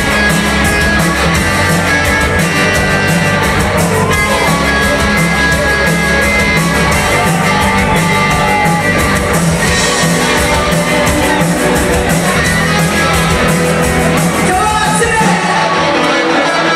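Live rock covers band playing, with drums, bass and electric guitar, and singing. The bass drops out near the end.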